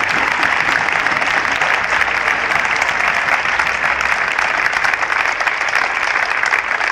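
A large crowd applauding, a dense, steady clatter of many hands clapping that holds without a break.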